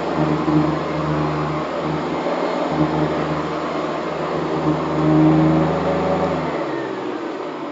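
Hoover Convertible upright vacuum cleaner running with a steady motor hum, then switched off about six and a half seconds in and winding down.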